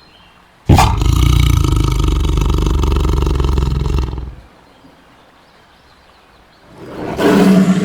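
Tiger roaring. One long roar starts suddenly about a second in and lasts over three seconds, then a shorter roar swells up and fades near the end.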